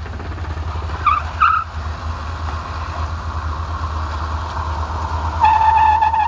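Chrysler PT Cruiser's four-cylinder engine running with a steady low rumble, two short high chirps about a second in. A steady high-pitched squeal joins near the end.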